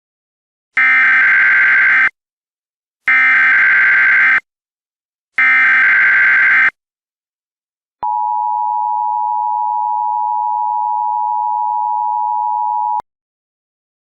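Emergency Alert System broadcast tones: three identical screeching SAME header data bursts about a second apart, then the steady two-note EAS attention tone held for about five seconds and cut off sharply. Together they signal the start of an emergency alert broadcast.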